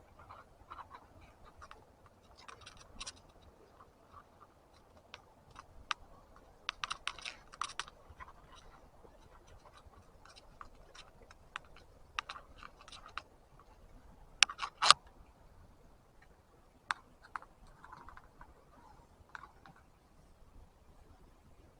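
Small scattered clicks, taps and light scraping of fishing tackle being handled while a limb line is rigged: line, lead sinker, swivels and hooks. The sharpest clicks come in a quick cluster about fifteen seconds in.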